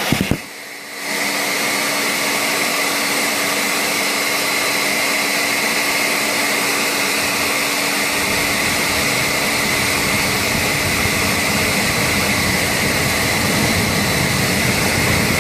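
Air blower for a homemade forced-air gas forge burner, running with a steady hiss and a motor whine. It cuts out briefly with a few clicks about a second in, then runs again. About halfway through, a low rumble joins as the gas burner lights and starts to burn.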